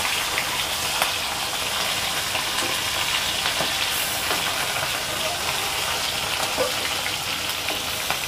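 Pieces of young carp sizzling steadily as they shallow-fry in hot mustard oil in an iron kadai, with a few light taps of a metal spatula against the pan.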